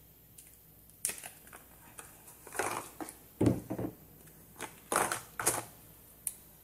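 Thin plastic molds flexing and crackling as bars of homemade soap are pushed out, with the bars knocking down onto a tabletop: a series of short crackles and knocks, about six in all.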